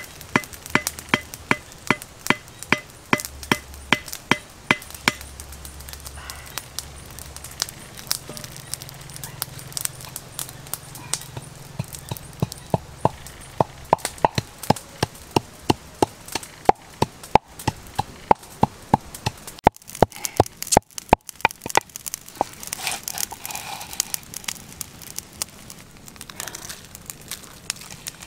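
Knife chopping food in a steady run of sharp strokes, about three a second, with a faint ring on each stroke at first. It pauses and then picks up again in further runs of chops.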